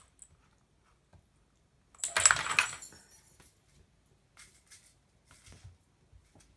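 A kitten playing with an arch play mat and its dangling toys: a burst of rattling, clicking clatter about two seconds in, then a few lighter rattles and clicks.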